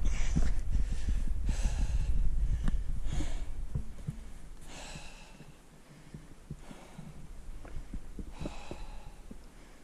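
A hiker breathing hard after a steep climb, with about six heavy, hissing breaths, while wind buffets the microphone with a low rumble that dies away about four seconds in.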